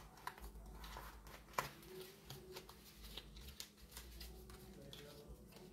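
Faint clicks and snaps of tarot cards being handled and shuffled, with one sharper snap about one and a half seconds in, over a low steady hum.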